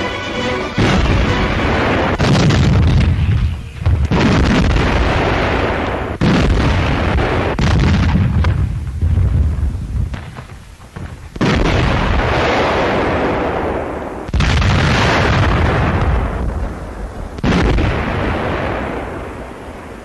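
Heavy artillery guns firing: about eight loud blasts a couple of seconds apart, each trailing off in a long fading rumble.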